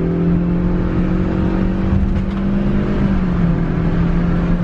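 Chevrolet Spark's 84-horsepower four-cylinder engine droning through its CVT as the car accelerates, heard inside the cabin. The engine note holds a nearly steady pitch while the road speed rises.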